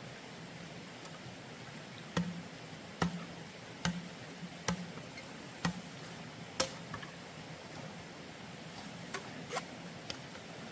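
A series of sharp knocks, about one a second for six strokes, then three more near the end, over a steady low hum.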